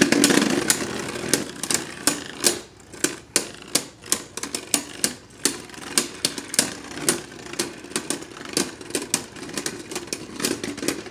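Two Beyblade Burst spinning tops in a plastic stadium, clacking against each other with sharp, irregular clicks about two or three times a second. A whirring spin sound fades out in the first two seconds.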